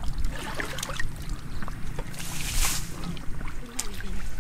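A plastic bucket scooping water from a shallow muddy pool and throwing it out, with one big splash of water about halfway through. The pool is being bailed dry to get at the fish.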